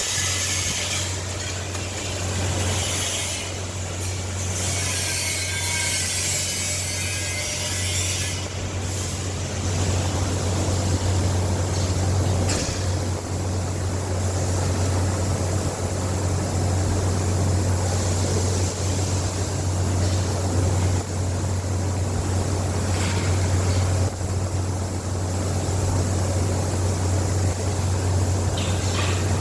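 A steady low machine hum under a shifting hiss, with a few faint clicks.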